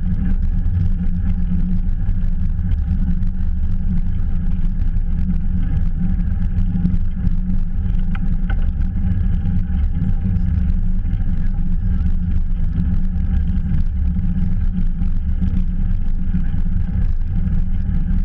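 Wind buffeting a GoPro's microphone on a moving bicycle, a steady low rumble.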